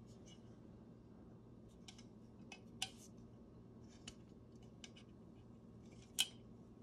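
Antique copper-bodied black powder flask handled in the hands: faint, scattered light clicks and taps of metal and fingers, with two sharper clicks about three and six seconds in.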